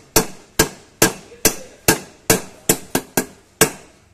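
Hammer blows on a drift driving the PTO bearing into a power tiller's gearbox housing: about ten sharp metallic strikes, two to three a second, as the bearing is seated.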